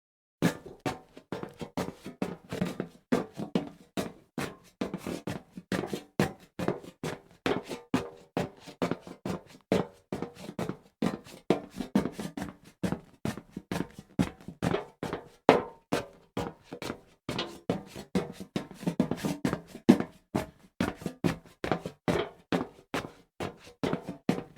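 Footsteps walking on a hollow metal surface: a steady run of knocking steps, each with a short hollow ring.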